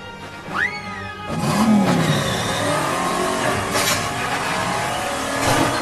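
Cartoon sound effects: a quick whistle rising then falling in pitch, then a car engine revving, running loud until it cuts off near the end, with music underneath.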